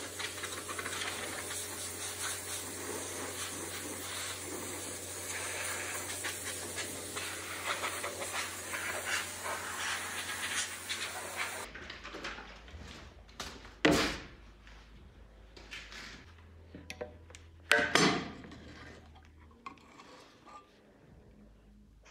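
Compressed-air blow gun hissing steadily, blowing off the bare metal before it is coated. Partway through the sound changes abruptly to quieter surroundings, and two short, loud blasts of air follow about four seconds apart.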